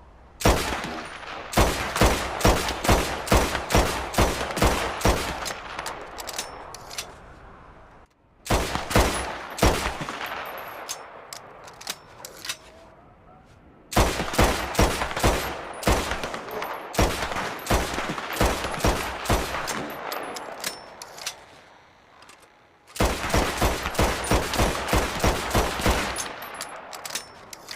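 Mauser C96 pistol firing in four strings of rapid shots, about two a second, each shot followed by a ringing echo, with short pauses between the strings.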